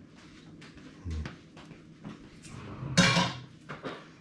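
A spoon clinking and scraping in a jar as a topping is spooned out over a bowl of porridge, with small clicks throughout and a louder clatter about three seconds in.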